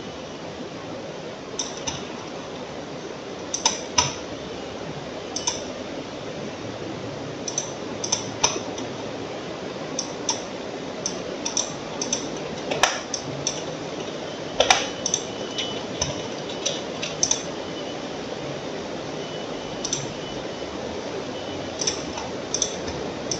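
Computer mouse clicking at irregular intervals, single clicks and quick pairs of clicks, over a steady background hiss.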